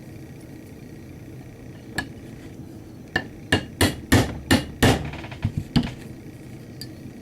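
Hammer tapping a brass punch to drift a Truglo tritium rear sight into the dovetail of a Glock 26 slide. There is a single tap about two seconds in, then a quick run of about eight sharp, ringing taps over the next three seconds, with the sight not yet fully seated.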